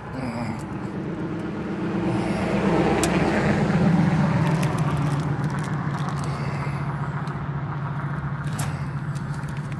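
A motor vehicle passing on the street: a low engine hum swells to its loudest about four seconds in, dropping slightly in pitch, then slowly fades.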